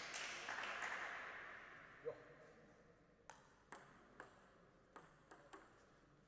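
Table tennis ball bouncing: one loud ping about two seconds in, then six lighter clicks over the next few seconds, as the ball is handled between points. A rush of noise fades out over the first couple of seconds.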